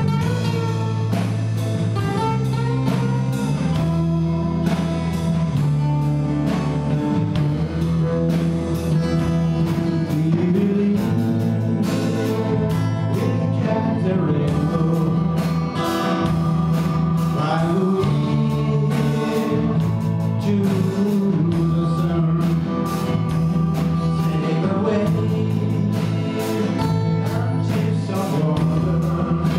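Live band playing a song, with acoustic guitars, electric bass, drum kit and keyboard, and a man singing lead into the microphone. Steady drum beat throughout.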